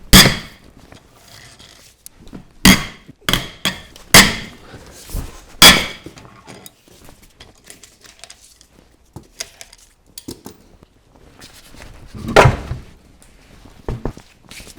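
A series of heavy thumps and clunks from car wheels being handled and set down on a garage floor. The loudest come right at the start and about twelve seconds in, with four more in the first six seconds and lighter clatter between them.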